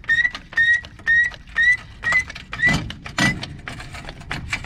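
Jack being pumped by its handle under a truck: a short rising squeak with a click at each stroke, about two a second, with a couple of heavier knocks before the pumping stops about three and a half seconds in.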